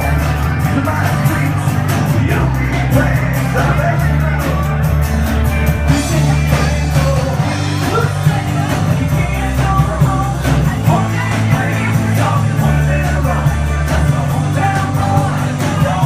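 Live rock band playing: bass guitar, electric and acoustic guitars and drums keeping a steady beat, with a vocalist singing over them.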